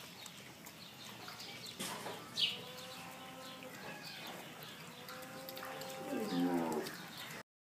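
Farm animals calling in a barn pen: long drawn bleat-like calls and a deeper, rougher call about six seconds in, with small birds chirping. The sound cuts off suddenly near the end.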